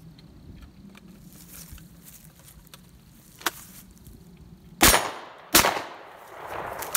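Winchester 101 over/under 12-gauge shotgun fired twice, both barrels in quick succession, the shots about three-quarters of a second apart. A click comes a little over a second before the first shot.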